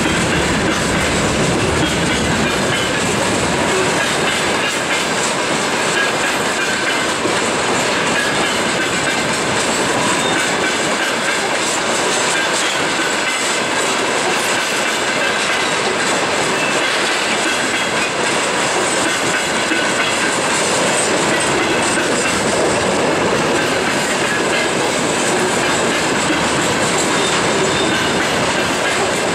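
Freight wagons (tank cars and covered hoppers) rolling past close by: a steady, loud rumble of steel wheels on the rails with the rhythmic clatter of wheels over the rail joints.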